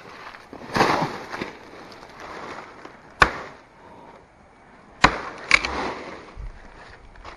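A machete striking dry bamboo three times with sharp cracks, among the rustling of dry bamboo leaves and fronds being pushed about.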